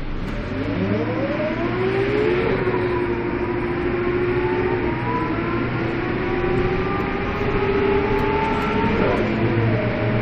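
Karosa B931 city bus heard from inside the passenger cabin, its diesel engine and drivetrain pulling away and accelerating. The pitch rises, levels off, and drops at a gear change about nine seconds in.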